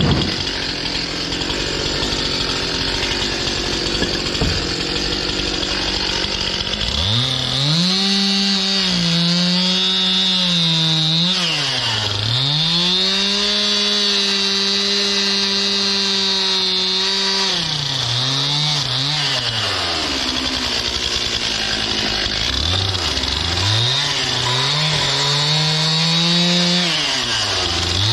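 Stihl MS 261 two-stroke chainsaw cutting sugar maple firewood. It runs at high revs, and its speed drops sharply and climbs back several times between cuts.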